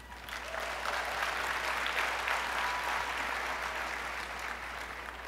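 Audience applauding. The clapping builds about half a second in and thins out near the end.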